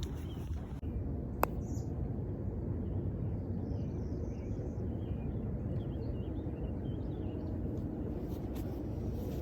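Outdoor ambience with a steady low rumble and small birds chirping through the middle. One sharp click about a second and a half in.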